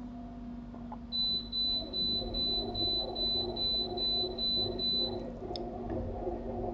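A high-pitched electronic beep repeating about three times a second for about four seconds, starting a second in, over a steady low hum and a softer rhythmic pulsing underneath.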